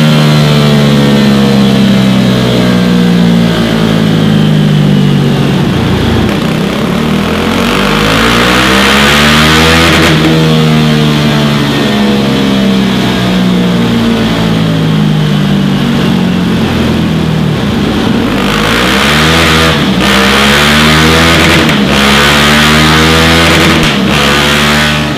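KTM Duke 390's single-cylinder engine through a Scorpion Serket Taper 3/4 exhaust, running hard on a rolling-road dyno with the rear wheel driving the roller. Its pitch climbs and drops back several times as the throttle is opened and eased off.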